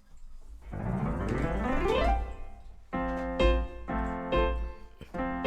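A sound sliding up in pitch, then keyboard chords struck over and over in a steady rhythm from about three seconds in.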